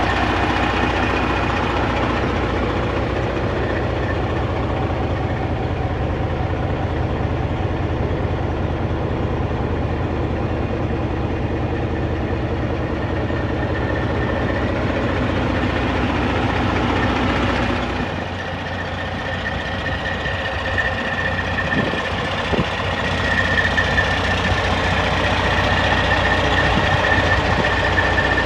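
Detroit Diesel Series 60 inline-six diesel of a fire truck idling steadily, a continuous low rumble with a steady high whine over it. About two-thirds of the way through, the deep part of the rumble drops a little and the whine grows stronger.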